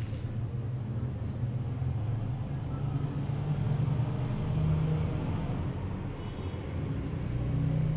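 Low, steady background rumble with no speech over it.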